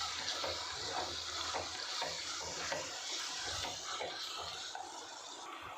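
Onion-tomato masala with ground spices sizzling in oil in a clay pot while it is stirred: a steady frying hiss. The masala is being fried until its raw smell goes and the oil separates.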